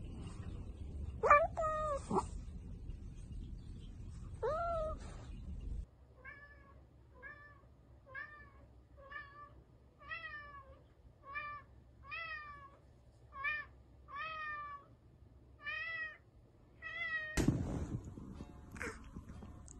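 Domestic cats meowing: a few drawn-out meows, then a long run of short, evenly spaced meows, each falling in pitch, about one a second, from a cat carrying a toy in its mouth. A sudden loud cry comes near the end.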